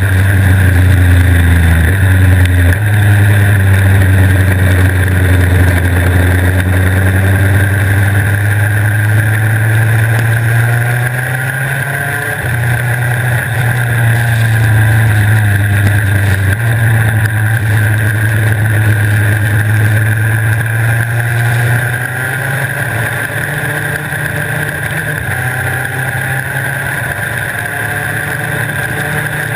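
Superkart's two-stroke engine running hard at speed, heard from onboard; its note steps up and down in pitch several times and climbs in long rises. A steady hiss runs underneath.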